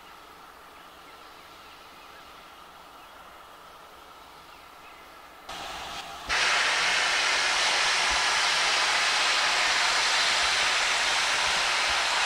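LMS Ivatt Class 2MT steam locomotive 46512 standing in steam with a faint steady hiss. About five and a half seconds in, its cylinder drain cocks open, and within a second a loud, steady hiss of escaping steam takes over.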